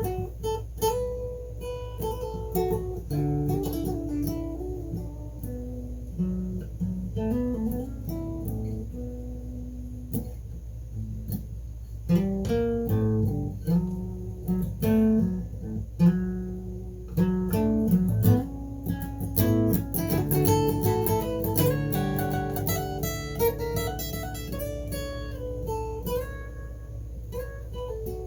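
Guitar music, most likely acoustic: plucked single notes and chords that quicken into a denser run about twenty seconds in, over a steady low hum.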